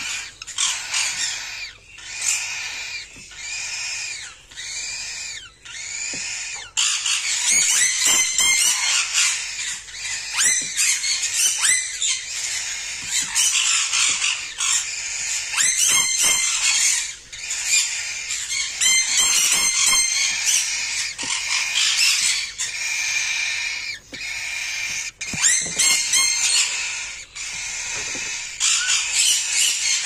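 Whiteface cockatiel chick begging, giving high raspy cries. At first they come about once a second, rising and falling in pitch. From about seven seconds in they are louder and harsher, with rapid rasping pulses.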